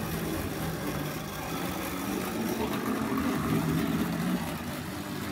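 Tri-ang Hornby Class 31 model diesel locomotive's electric motor running slowly on half-wave power, with a steady hum. The half-wave supply makes this model noisier than usual: a noisy model.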